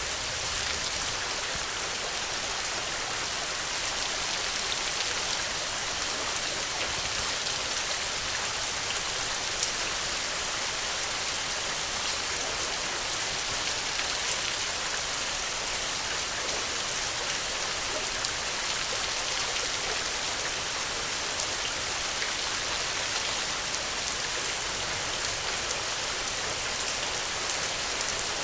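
Steady rain falling, a dense even hiss of drops on a surface with many small individual drop ticks.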